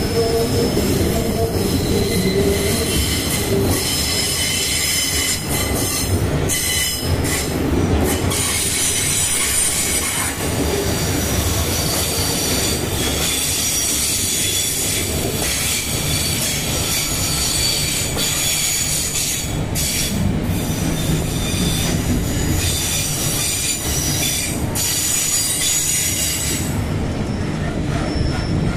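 Freight train wagons rolling past close by: a steady rumble and clatter of steel wheels on the rails, with high-pitched wheel squeal running throughout.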